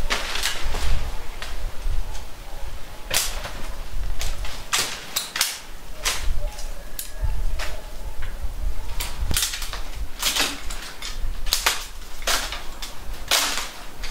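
Hand pruning shears snipping through freshly cut branches and twigs: a string of sharp, irregular snaps, about one every second or so.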